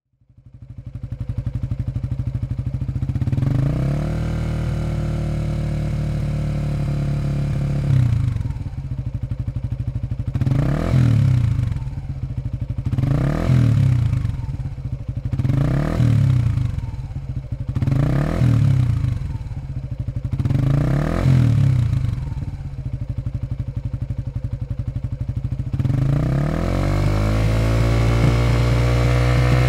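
Suzuki V-Strom 250SX single-cylinder engine running through a Yoshimura GP-MAGNUM105 Cyclone stainless slip-on muffler, stationary in neutral. It idles and is held at a slightly raised rpm for a few seconds. It then gets five quick throttle blips about every two and a half seconds, returns to idle, and near the end climbs to a steady higher rpm.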